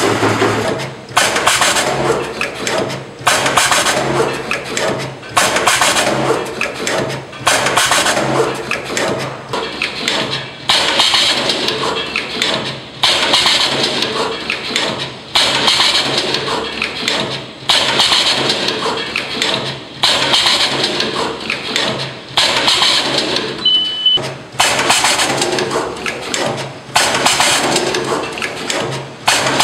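Automatic wire cutting, stripping and tinning machine running through its cycle about once every two seconds, each cycle starting sharply and dying away, over a steady low hum.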